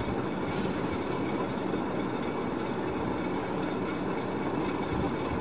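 Steady rushing background noise with a low rumble, unchanging throughout.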